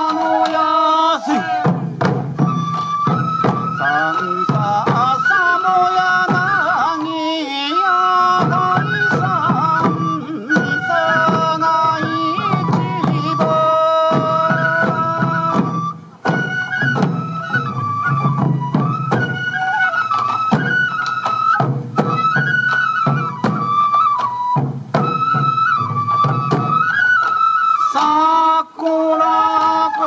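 Sansa odori festival music: Japanese bamboo flutes play a held, stepping melody over steady beats of waist-worn taiko drums. The drumming comes in about a second in and briefly drops out around the middle.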